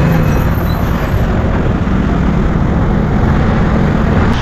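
Steady motor vehicle engine drone under a loud, even rush of road and traffic noise, heard while riding a two-wheeler through city traffic.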